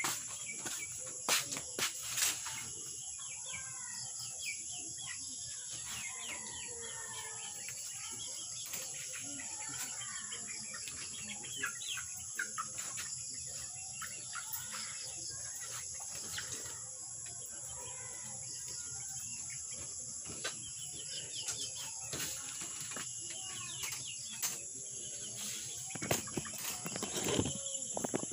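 Birds chirping over a steady high-pitched hiss, with a few sharp knocks and rustles about two seconds in and again near the end as leaves and the camera are handled.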